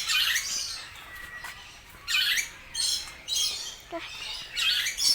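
Birds squawking: about five short, harsh, high-pitched calls a second or so apart.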